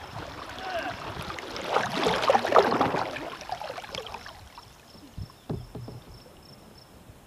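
Kayak paddle strokes in river water: splashing and dripping from the paddle blades, loudest about two to three seconds in, then quieter water lapping as the kayak glides and slows, with a couple of sharp knocks a little later.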